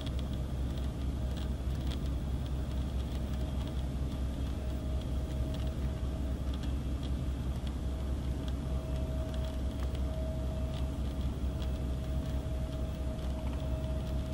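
Regional jet turbofan engines idling and taxiing at a distance: a steady low rumble under a steady high-pitched whine.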